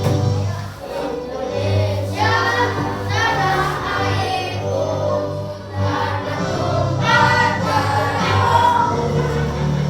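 A song with a group of voices singing held, gliding lines over a steady bass accompaniment.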